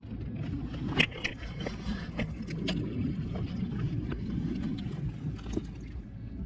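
Low steady outdoor rumble with a handful of sharp clicks and knocks, the loudest about a second in, as a mesh keep net full of fish is held and moved.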